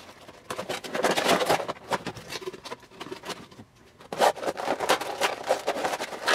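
Cardboard box flaps being opened, then a clear plastic blister tray pulled out and handled: rustling, scraping and crinkling, with a short lull a little past halfway.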